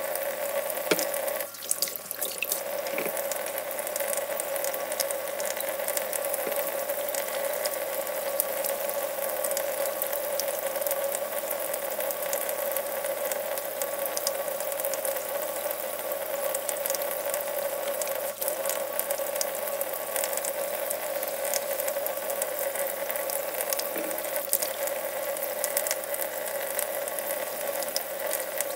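Kitchen faucet running steadily into a stainless steel sink while hands are washed under the stream.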